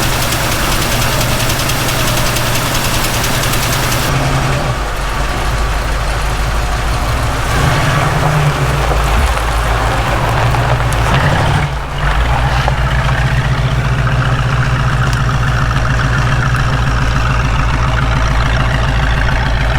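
1967 Ford Mustang engine running with its freshly repaired carburetor, the engine note shifting a few times and dipping briefly about twelve seconds in before settling into a steady run.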